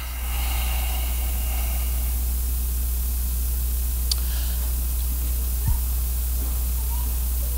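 Steady hiss over a low hum, getting a little louder just after the start. A short click comes about four seconds in and a brief thump near six seconds.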